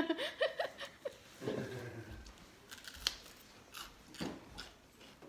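A voice briefly at the start, then a few sharp crunches of someone biting and chewing crisp food.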